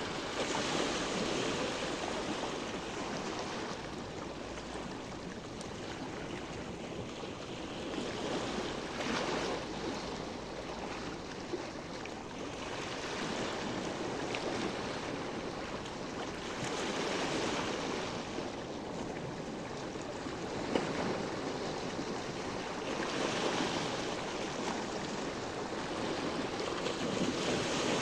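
Small sea waves washing onto the shore and draining back, swelling and easing every few seconds.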